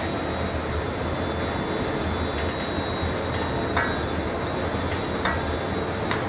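Steady roar of a glass studio's gas burners and blowers, with two faint ticks, one nearly four seconds in and another a second and a half later.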